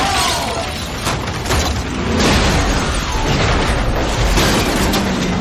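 Action-film explosions: several heavy booms over a dense, loud rumble.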